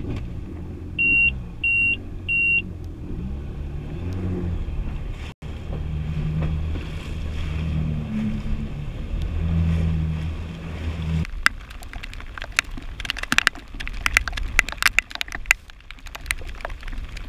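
2019 Yamaha WaveRunner FX HO jet ski engine running under way, its pitch rising and falling, with three short electronic beeps about a second in. About eleven seconds in the engine sound stops and gives way to sharp, irregular ticks of raindrops striking close to the microphone.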